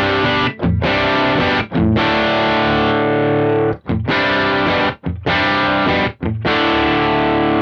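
Electric guitar played through a Kemper Profiler amp profile with some overdrive: a series of chords, each left to ring, with short breaks between them.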